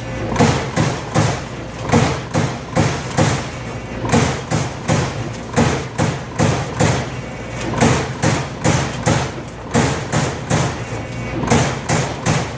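Amada Aries 245 CNC turret punch press punching sheet metal: a run of sharp hits, about two to three a second at slightly uneven spacing, over a steady machine hum.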